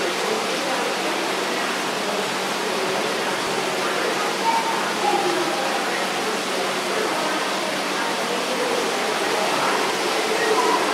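Steady rushing background noise in an aquarium hall, like running water, with faint, indistinct voices of people in the background.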